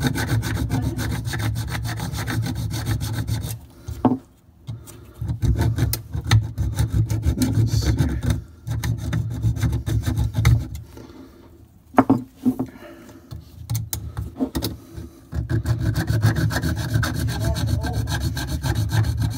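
Hacksaw blade sawing through a copper water supply pipe behind a brass compression nut, cutting off the old fitting so a new shut-off valve can go on. It goes in runs of rapid back-and-forth strokes with a few short pauses in the middle.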